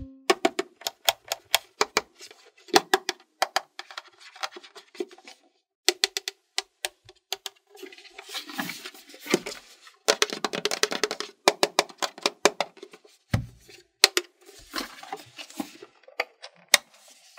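Fingers and fingernails tapping, clicking and rubbing on a hollow hard-plastic watermelon-shaped toy case: quick runs of sharp clicks alternate with scratchy scraping stretches, and there is one louder click near the end.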